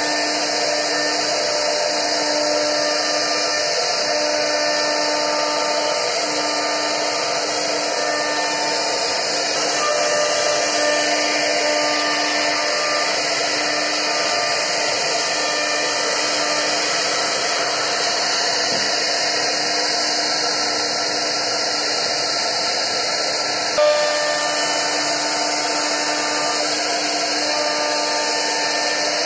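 CNC wood router carving into a wooden board: the spindle's cutter makes a steady high hiss over a hum whose tones break off and come back every second or two as the head moves. A brief knock about 24 seconds in.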